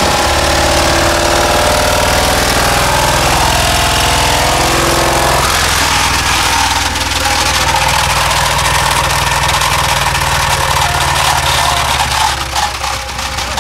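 Ford F-150 engine with limestone in its oil, running loud and steady while being run to destruction. Its note shifts about five and a half seconds in and grows less even near the end.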